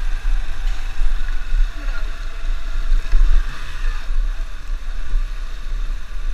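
Motorcycle riding slowly along a street: the engine running under a loud, uneven low rumble that rises and falls.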